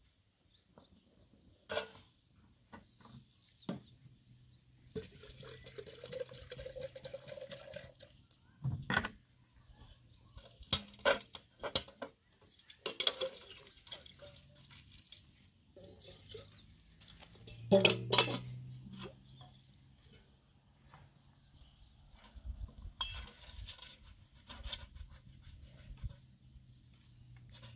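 Metal dishes (a steel cup, a teapot and a metal tray) knocking and clattering as they are rinsed by hand, with water poured over them. A stretch of pouring with a slowly rising tone comes about five seconds in, and the loudest clatter is about eighteen seconds in.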